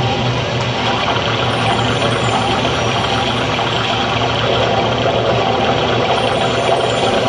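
Loud, dense background music playing steadily, with no narration over it.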